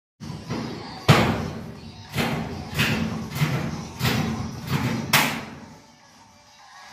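Thin ribbed metal ceiling sheet thudding and rattling as it is pushed and knocked up into place against a metal furring frame. There are about six sharp hits in the first five seconds, each with a brief ringing decay, and then it goes quieter.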